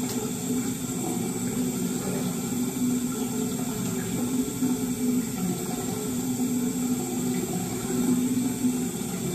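Tap water running steadily.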